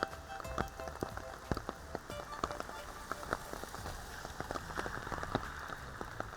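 Steady rain falling, with many individual raindrops ticking sharply and irregularly on a nearby surface.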